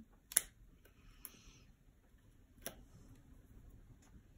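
Fingernails picking the backing papers off small double-sided adhesive foam squares on a card piece: a few faint sharp ticks and one brief papery rustle.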